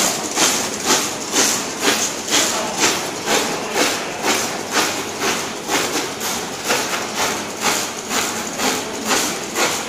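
YH-210C multifunction label printer running, with a steady rhythmic clack-and-hiss stroke about twice a second as it cycles through printing and die-cutting labels.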